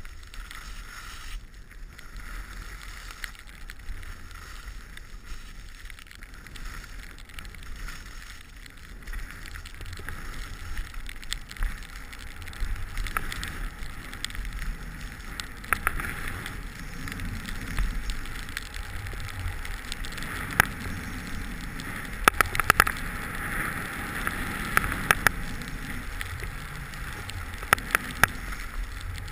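Skis sliding and hissing over snow during a downhill run, with low wind buffeting on an action camera's microphone. The hiss grows louder about halfway through, and sharp clicks and knocks come now and then.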